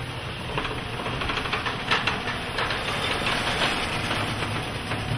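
One-piece wooden tilt-up garage door moving slowly by hand on its Holmes E-900 hinge arms and extension springs: steady creaking and rattling of the hardware and door, with scattered clicks and one sharper click about two seconds in.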